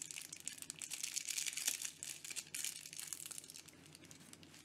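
Thin clear plastic pen sleeve crinkling and crackling as a fountain pen is worked out of it. The crackles are quiet and thin out near the end.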